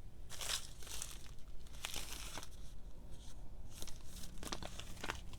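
A paper instruction leaflet rustling and crinkling in short, irregular crackles as it is unfolded and handled.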